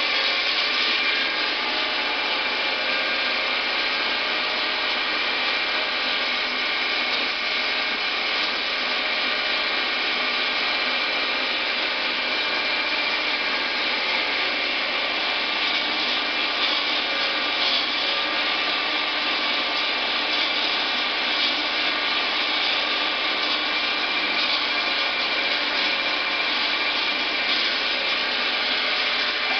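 Schaublin CNC lathe running through a turning operation: a steady machine sound with several whining tones and a scratchy cutting hiss.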